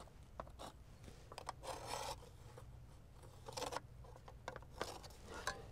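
Pencil scratching along the edge of an aluminium transom cap as it is traced onto the boat's fibreglass transom, in several short strokes.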